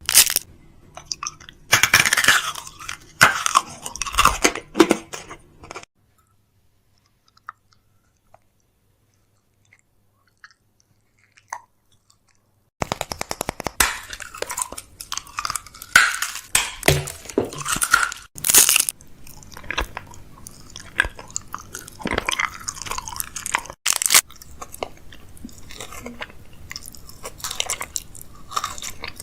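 Fridge-restocking handling sounds: plastic packaging crinkling and containers and lids clicking and knocking as items are set in place. The sounds stop for about six seconds, from about six seconds in, then pick up again.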